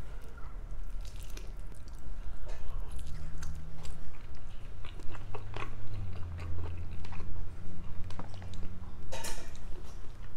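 A man biting into a smoked, barbecue-sauced chicken drumstick and chewing it, with many small wet clicks of the mouth.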